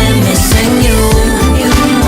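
Background music: an R&B/pop song's instrumental passage with a steady beat and bass line.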